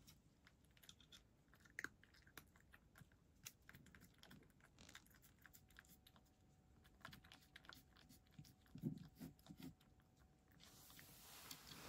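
A cat eating, with faint, irregular quick clicks of chewing throughout and a few heavier mouthfuls near the end.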